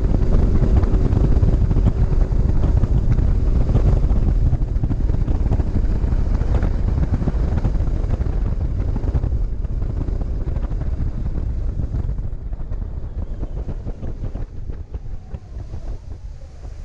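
Wind buffeting the microphone over the low rumble of a boat running across open water, gradually fading away.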